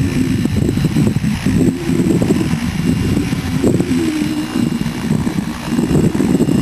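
Hurricane E550 model helicopter flying, its rotor hum wavering, with heavy wind buffeting on the microphone.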